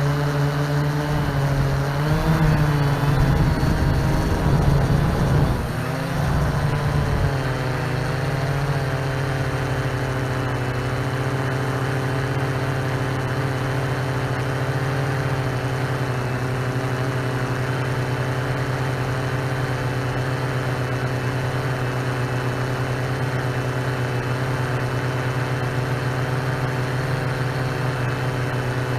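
Multirotor drone's motors and propellers humming steadily. For the first seven seconds or so the pitch wavers, with low rumbling, and then it settles to an even hum.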